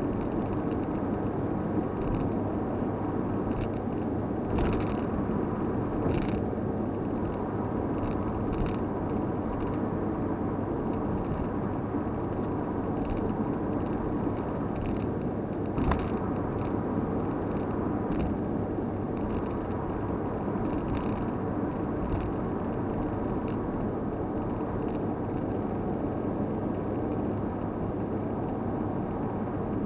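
Steady road noise of a car driving at motorway speed, tyres and engine running evenly, with a few brief knocks or clicks; the sharpest comes about sixteen seconds in.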